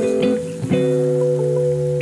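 Background instrumental music led by plucked guitar, with held notes and a new chord about three quarters of a second in.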